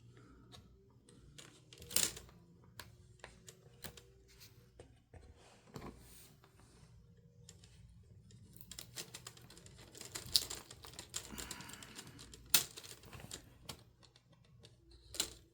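Plastic laptop screen bezel being pried loose with a plastic pry tool: scattered small plastic clicks and taps, a busier run of clicking about two-thirds of the way through, and a few sharper snaps, as the bezel's clips and tape are worked free.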